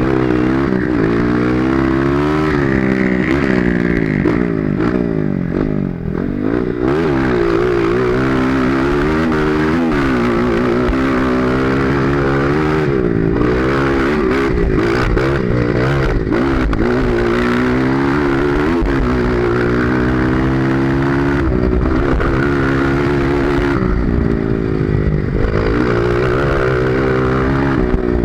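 Honda CRF230 trail bike's single-cylinder four-stroke engine running under way, its revs rising and falling again and again as the throttle is worked, with a brief drop about six seconds in.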